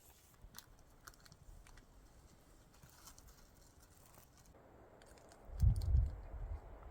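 Faint scattered crackles and ticks, then from about five and a half seconds in, low rumbling gusts of wind buffeting the microphone, which are the loudest thing heard.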